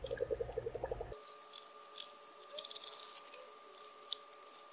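Wet squelching from the rotting, gas-filled flesh of a decomposing wolf head being cut with a dull knife and handled in a bucket of water: a rapid run of squishy pulses that cuts off about a second in, then only faint scattered clicks.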